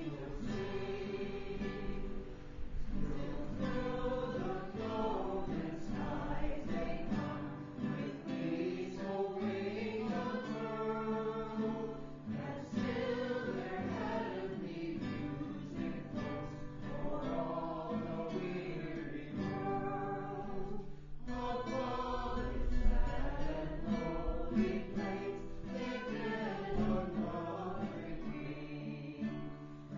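A small group of men and women singing a Christmas carol together, accompanied by an acoustic guitar. A brief low rumble comes about two-thirds of the way through.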